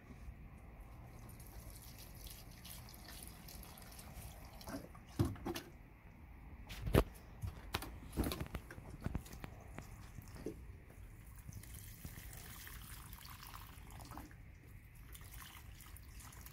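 Water pouring from a watering can onto the soil of potted tomato plants, with splashing and dripping. A few sharp knocks in the middle are the loudest sounds.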